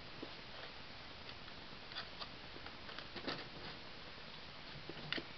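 Faint, scattered light clicks and taps of a clear plastic disc case and the discs in it being handled, over a steady low hiss, with a sharper pair of clicks near the end.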